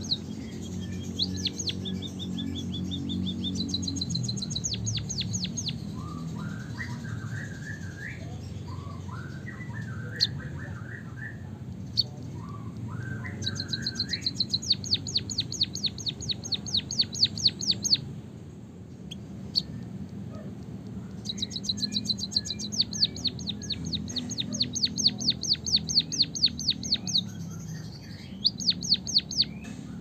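White-headed munia singing canary-style song: several bouts of fast, high rolling trills, with a lower, buzzy warble between them about a quarter of the way in. A steady low hum runs underneath.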